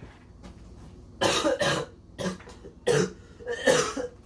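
A person coughing: a run of about five short, harsh coughs, the first two close together.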